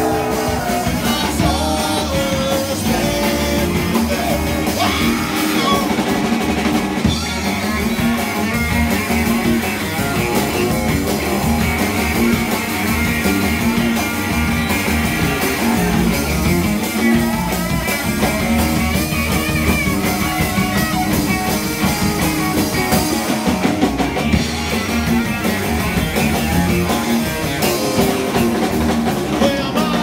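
Live rock band playing at full volume: electric guitar and drum kit with singing, a steady rock-and-roll groove.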